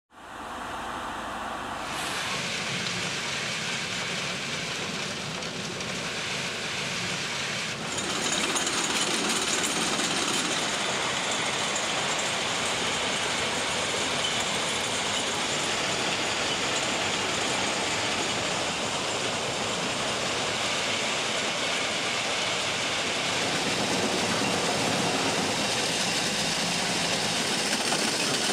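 Plasser & Theurer URM 700-2 ballast cleaning machine working on the track, a steady, dense machine noise from its engines and excavating unit. It gets louder about two seconds in and again about eight seconds in.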